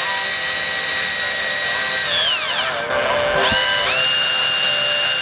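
Electric drill running at speed, its bit boring through a metal mounting plate into a car body panel, with a steady high whine. About two seconds in the whine falls away as the drill slows, then it spins back up about a second later and runs steady again.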